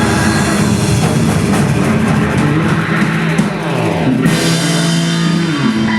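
Live band playing loud roots rock, driven by a full drum kit, with the cymbals dropping out a little past the middle.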